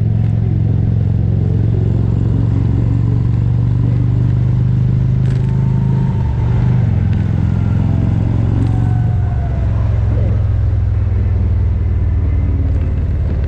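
2023 Indian Roadmaster's Thunderstroke 116 V-twin engine running steadily under way. The engine note dips briefly about six seconds in and shifts again near ten seconds.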